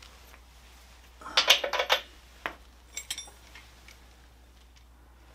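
Metal hand tools clinking and clanking as a socket wrench is picked up from among tools on the floor and fitted onto the motorcycle's front axle: a quick cluster of ringing metal clanks about a second and a half in, then a few lighter clicks around three seconds in.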